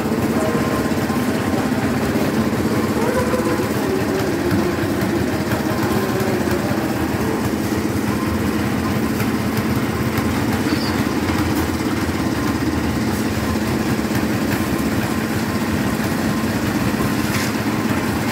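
Small engine of a portable concrete mixer running steadily at constant speed during a concrete pour.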